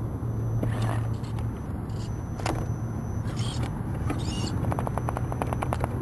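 Axial Trail Honcho electric RC rock crawler climbing over rocks: a steady low hum under scattered sharp clicks, then in the last second or so a rapid rattling of about a dozen ticks a second.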